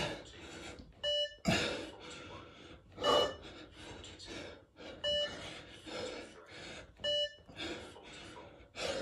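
Short electronic timing bleeps from a press-up test track, one about every two seconds, each setting the pace for a press-up. Between the bleeps comes heavy breathing from the man doing the press-ups.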